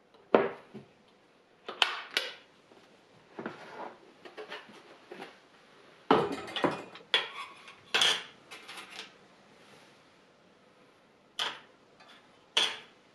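Metal candle-carving tools and their wooden case being handled on a tabletop: irregular sharp clinks and knocks in clusters, with quiet gaps between, the busiest stretch about six to nine seconds in.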